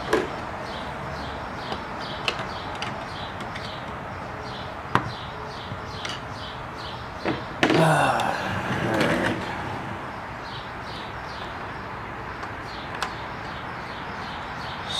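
Sewing machine being handled: scattered light clicks and knocks from its housing and parts, with a louder scraping, sliding noise lasting about a second and a half around eight seconds in as the machine is turned.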